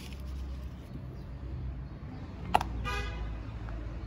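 Steady low street rumble of traffic, with a sharp click about two and a half seconds in and then one brief car-horn toot.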